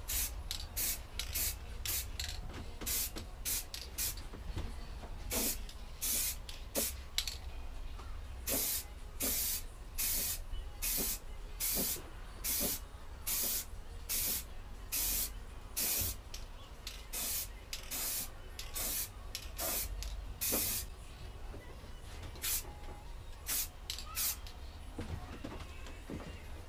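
Aerosol spray paint can hissing in short bursts, one or two a second, as the final coat of gloss black goes onto a lawnmower deck.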